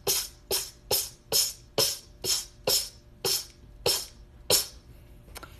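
A woman's rapid string of small, sharp sneezes, about ten in a row at roughly two a second, stopping about four and a half seconds in.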